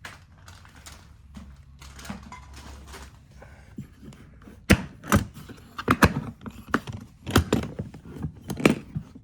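Rummaging among tools in a toolbox or drawer: a string of sharp knocks, clacks and thunks of hard objects being moved, starting about halfway through and coming several to the second.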